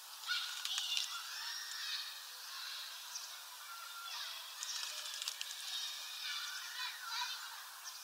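Great tit bathing in a shallow plastic tub of water, splashing in several short bouts: near the start, around the middle, and again late on. Other birds call and sing in the background.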